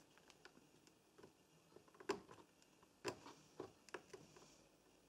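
Near silence with a handful of faint, sharp clicks: multimeter probe tips tapping against solder joints on a washing machine control board during a relay test.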